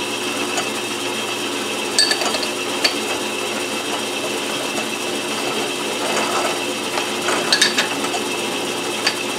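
Metal lathe running steadily while a drill bit in the tailstock chuck cuts into a spinning metal pulley, roughing out metal before the hole is bored. A few short sharp clicks come through, about two seconds in, at three seconds, and a couple more near the end.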